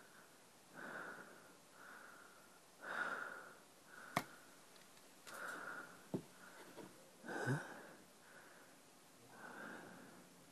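Quiet, heavy breathing, slow in-and-out breaths about one a second. A single sharp click about four seconds in, as the metal catch of a small keepsake box is opened.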